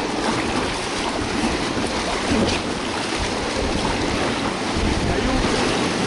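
Whitewater rapids churning around an inflatable raft: a loud, steady rush of turbulent water.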